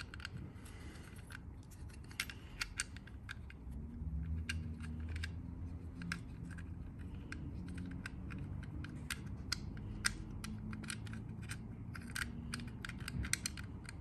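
Irregular small metallic clicks and ticks as a brass threaded part is worked by hand into the cylinder hole of a steel Baldwin mortise lock case, trying to get it to catch its threads. A low hum joins in from about four seconds in.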